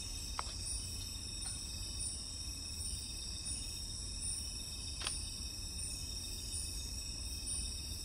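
Night-time insect chorus: crickets keep up a steady high-pitched trilling on several notes, with a higher note pulsing about once a second over a low rumble. Two faint clicks come about half a second and five seconds in.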